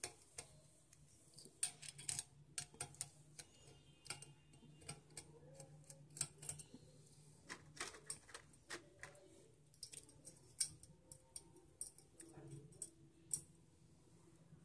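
Faint, irregular clicks and ticks of a hand screwdriver turning a small screw through a metal mounting bracket into a CPU cooler's base.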